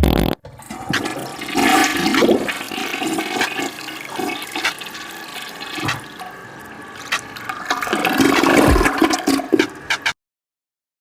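Toilet flushing: water rushing for about nine seconds, then cutting off abruptly.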